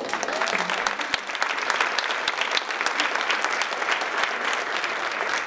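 Audience applauding at an even level, many hands clapping at once.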